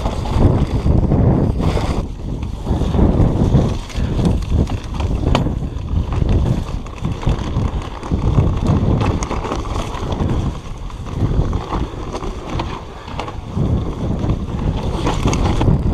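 Wind buffeting the microphone of a camera riding along on a mountain bike descending a dirt trail, with tyre noise and short knocks from the bike over the bumps.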